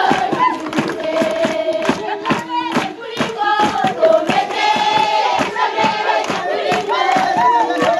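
A crowd of children singing and shouting together while clapping their hands in a steady rhythm.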